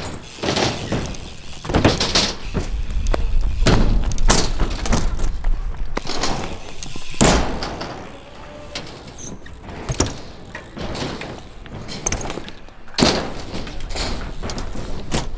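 BMX bikes riding on a concrete skatepark: tyres rolling and a series of sharp thuds and clanks from landings and ramp hits, the loudest about seven seconds in and others near ten and thirteen seconds.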